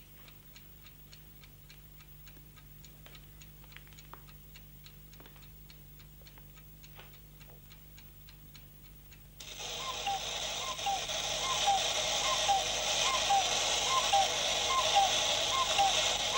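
A clock ticking steadily, about two ticks a second, in a quiet room. About nine seconds in, a much louder steady rattling ring starts suddenly and cuts off sharply at the end.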